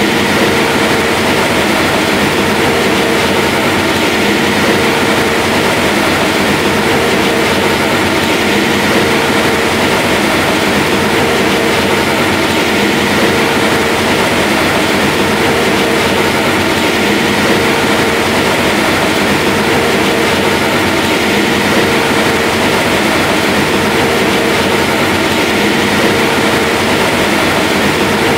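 Large diesel farm machine running steadily under load, a deep engine sound with a steady whine over it and a mid-pitched tone that comes and goes every couple of seconds.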